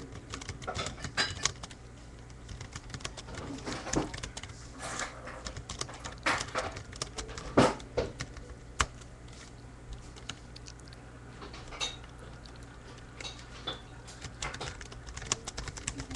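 Typing on a computer keyboard as a chat message is typed out and sent: uneven runs of key clicks with short pauses, a few keystrokes louder than the rest.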